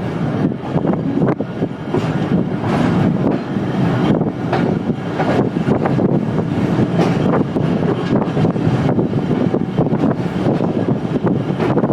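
Passenger train coaches running on the track, a steady rumble crossed by irregular clacks and rattles of wheels and running gear.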